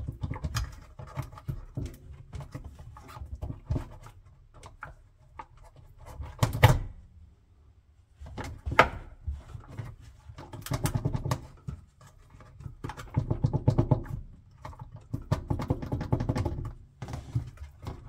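Plastic filter screen in a dishwasher sump being handled and worked loose by hand: irregular light clicks, taps and scrapes of plastic on plastic and stainless steel, with a sharper knock about six and a half seconds in.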